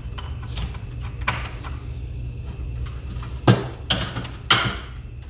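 Parts of an opened Marantz DV4200 DVD player's disc drive and chassis being handled: scattered light plastic clicks, then two louder clattering knocks about three and a half and four and a half seconds in.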